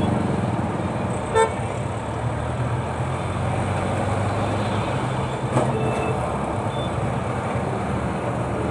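Road traffic at a busy junction: truck, tractor and motorbike engines running steadily as vehicles pass, with a short horn toot about a second and a half in.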